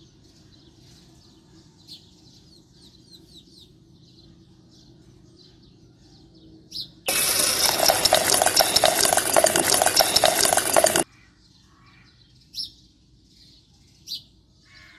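A battery-powered toy cement mixer's small electric motor and gears running with a steady, dense rattle. It starts abruptly about halfway through, runs for about four seconds and cuts off sharply, as the drum turns and empties wet concrete. Faint birds chirp before and after.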